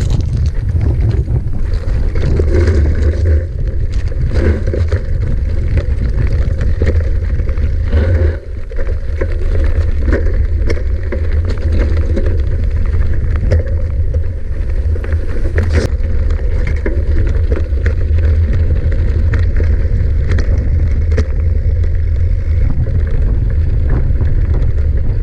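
Wind buffeting the microphone of a camera on a moving mountain bike, heard as a loud low rumble. Frequent sharp clicks and rattles run through it from the bike and its tyres on rough ground.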